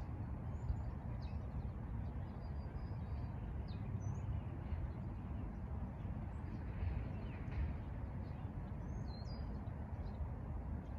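Birds chirping now and then over a steady low outdoor rumble.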